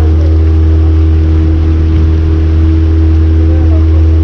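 Motorboat engine running at a steady speed under way, a constant low drone.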